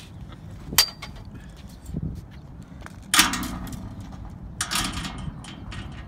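Landing net and its metal handle knocking on a concrete pier: one sharp clank about a second in, then a dull thump and two louder scuffling rustles as a freshly caught freshwater drum (sheepshead) is handled in the net.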